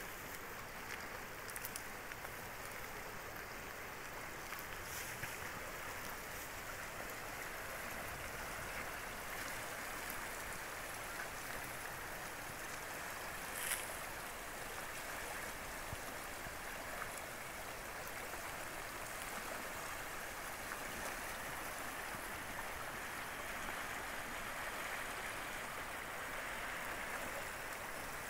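Creek water rushing steadily over shallow, rippling stretches of a rocky streambed.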